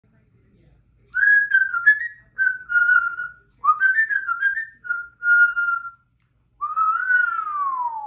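Congo African grey parrot whistling: four short runs of whistled notes, then one long whistle near the end that rises briefly and slides down in pitch.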